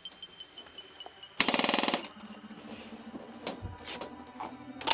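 Airsoft gun firing a short full-automatic burst of about half a second, about a second and a half in, followed by a few scattered single sharp clicks.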